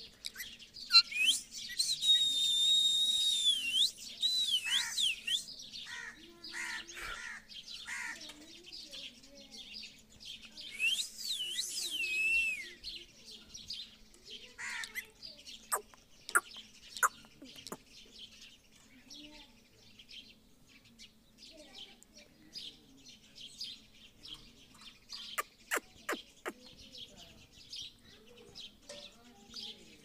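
Rose-ringed parakeet calling: a long shrill call about two seconds in and another around eleven seconds, with short chirps and clicks scattered between.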